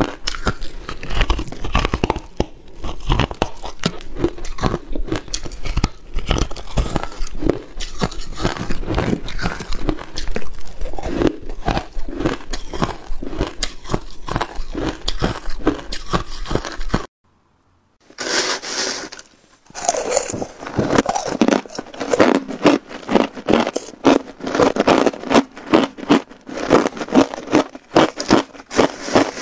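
Close-miked crunching of hard ice being bitten and chewed, dense rapid crunches. A second's total silence at about 17 seconds, then crushed ice crunched between the teeth in an even chewing rhythm, a few crunches a second.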